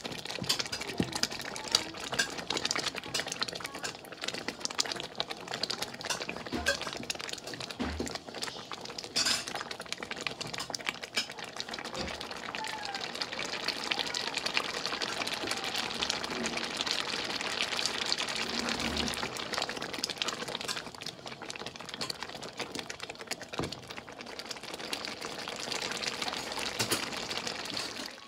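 A thick pot of mustard greens bubbling hard and spattering on high heat while a wooden spoon stirs and knocks against the pot. The saag is being boiled down to dry off its water.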